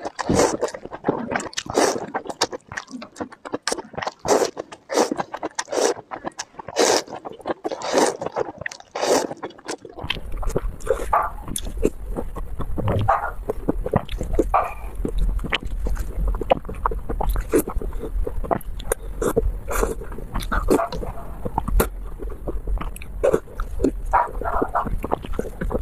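Close-miked slurping of noodles and chewing: loud, wet sucks and mouth sounds in an irregular run. About ten seconds in the sound changes to a second recording, with a steady low hum under the slurping.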